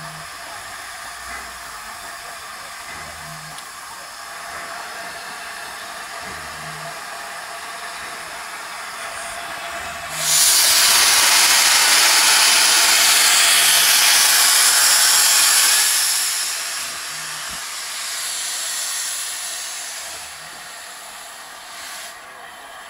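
Steam locomotive, LNER A4 Pacific 60009, hissing steam as the train moves off. About ten seconds in, a loud rush of steam lasts some six seconds and then fades.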